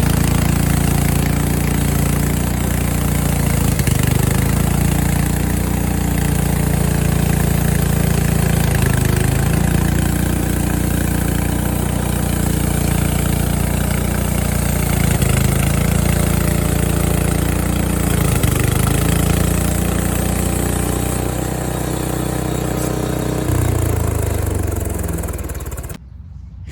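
Frontier OS23 bandsaw sawmill's gas engine running steadily while sawing boards from an ash cant, its pitch shifting slightly up and down. It stops abruptly near the end.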